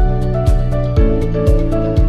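Background music with a steady beat of about two deep thumps a second under held chords; the chord changes about a second in.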